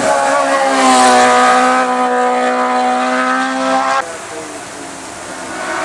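Hillclimb race car engine at high revs, its pitch holding steady and rising slightly. It cuts off abruptly about four seconds in, and a quieter engine note builds up again near the end.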